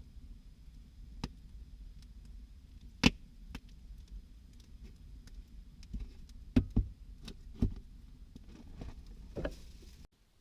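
Irregular sharp knocks and clicks, about eight in all, the loudest about three seconds in and several close together a little past halfway, over a faint low rumble; the sound cuts off abruptly just before the end.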